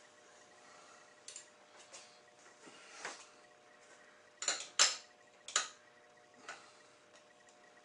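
Metal-on-metal clinks and clicks of a wrench working the mirror's mounting bolt, a handful of separate sharp strikes, the loudest pair about halfway through, over a faint steady hum.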